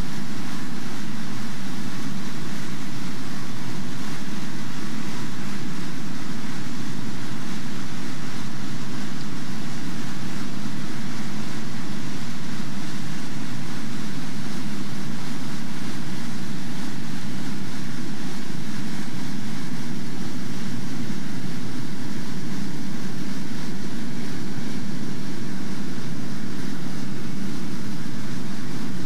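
Steady, loud rush of whitewater rapids.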